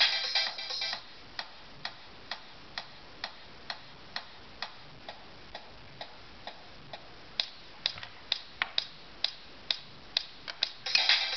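Music from the iPhone's own small speaker cuts off about a second in, leaving sharp soft ticks at a steady rate of about two a second. In the last few seconds the ticks come faster and unevenly, and the music starts again just before the end.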